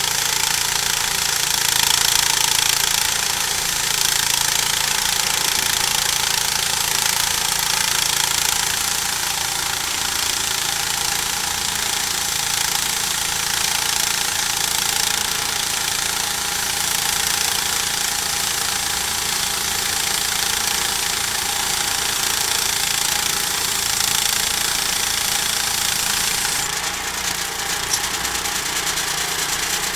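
Homemade sawmill cutting through a log, its engine running steadily under load with the blade hissing through the wood. The sound eases slightly a few seconds before the end.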